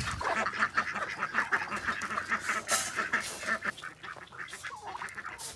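A flock of farm poultry calling, many short calls overlapping in a rapid, steady chatter.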